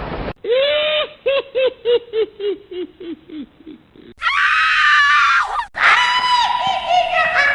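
Horror sound-effect clips spliced one after another: first a run of short pitched cries, about three a second, falling steadily in pitch. Then, a little past the middle, a loud high scream, and after a short break a second scream that slides in pitch.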